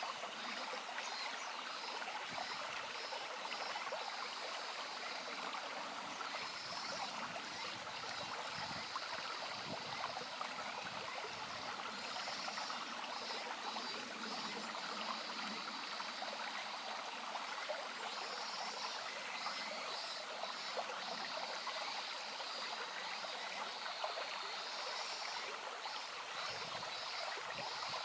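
Shallow brook babbling and trickling steadily over stones. Every few seconds there are faint bursts of rapid, high-pitched pulsing calls.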